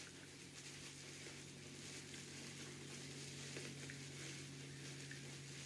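Faint rustling and crinkling of fabric and insulated batting being handled and pulled through a small opening, over a steady low hum.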